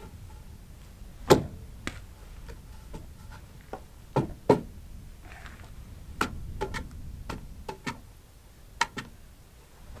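Hand-tool work on a timber-frame beam: about ten sharp, irregular knocks and taps. The loudest come about a second in and around four and a half seconds in.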